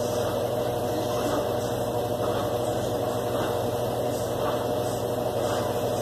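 Consul CWB12 top-load washing machine running, its motor giving a steady, even hum.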